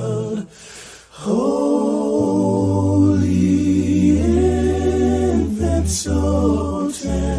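Unaccompanied group singing: slow, long-held notes in harmony over a steady low part, with a brief break about half a second in before the voices come back.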